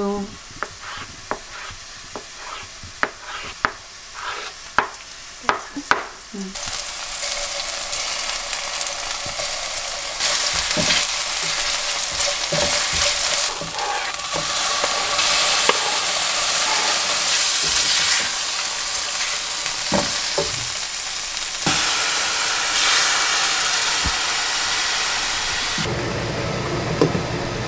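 Tofu being cut with a knife on a cutting board, a string of sharp taps over the first six seconds. Then tofu cubes sizzling in oily chili sauce in a stainless steel frying pan, a steady hiss with occasional knocks of stirring, its level jumping at several edits.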